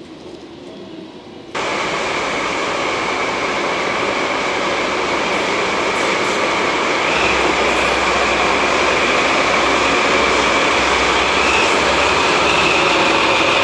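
JNR DD51 diesel-hydraulic locomotive running past close by, hauling a short rake of cars: a loud, steady mechanical noise with a high whine over it, and a deeper rumble coming in about halfway through. It starts suddenly about a second and a half in, after a quieter stretch of distant train sound.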